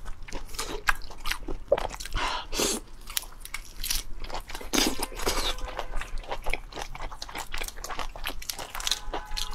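Close-miked eating sounds of raw marinated black tiger prawns: biting, chewing and wet smacking, heard as many short, irregular clicks and crunches.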